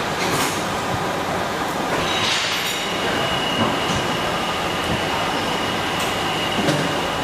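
Steady mechanical running noise with a thin high whine that comes in about two seconds in and holds one pitch until near the end.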